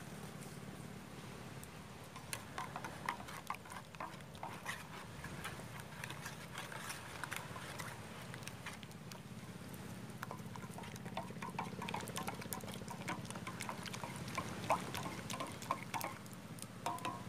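A hot drink being stirred with a wooden stick in a steel mug: liquid sloshing, with irregular clicks and taps of the stick against the mug from about two seconds in. A steady low hum runs beneath.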